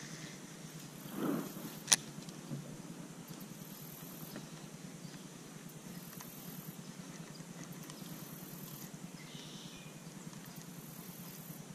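Faint steady outdoor background with a brief swell and then one sharp click about two seconds in, from a baitcasting rod and reel being cast and brought back in.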